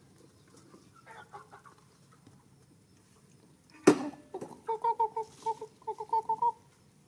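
A chicken clucking: a string of about a dozen short, same-pitched clucks in quick succession over the second half, just after a single sharp knock about four seconds in.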